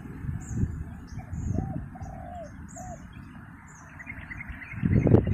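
A dove cooing, about four short hooting notes in a row in the middle, over the steady high chirping of small birds. A louder low rumble comes in near the end.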